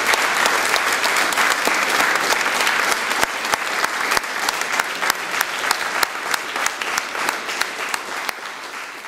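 Audience applauding, a dense patter of many people clapping that slowly dies down.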